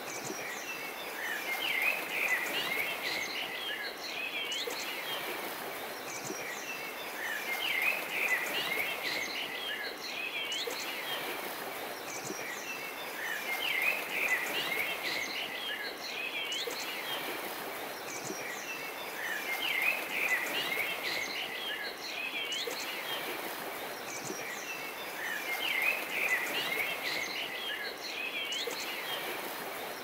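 Birds chirping and calling over a steady background hiss, the same short stretch of birdsong repeating about every six seconds as a loop.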